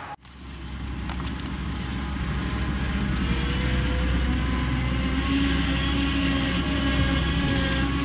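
Claas Dominator Maxi 98 combine harvester running steadily, a continuous diesel engine and machinery drone that fades in just after the start.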